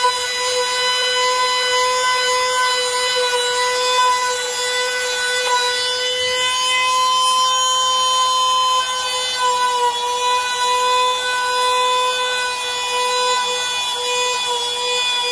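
A small high-speed power-tool motor whining at a steady pitch, with a brief dip in pitch about two-thirds of the way through.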